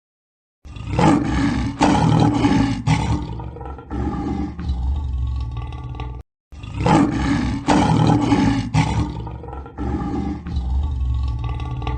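Lion roaring: a bout of deep roars, loudest at the start and weakening toward the end, then after a brief silent gap the same bout again.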